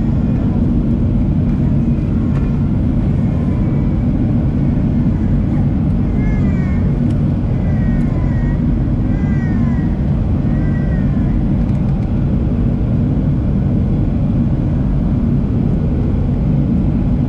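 Steady cabin noise of a Boeing 737-700 on its landing approach, heard inside the cabin at a window seat over the wing: a loud, even low rumble from the CFM56-7B engines and the airflow past the fuselage.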